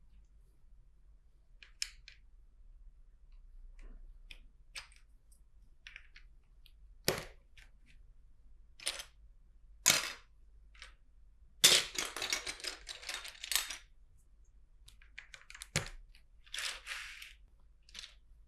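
Plastic LEGO bricks clicking and knocking as they are handled and pressed together, with a couple of seconds of dense rattling about two-thirds in as loose bricks are sifted through.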